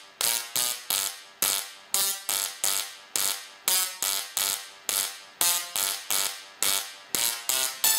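Singing Tesla coil (OneTesla kit) playing a tune through its sparks: a run of short, buzzy notes, about two to three a second, each starting sharply and fading, the pitch changing from note to note.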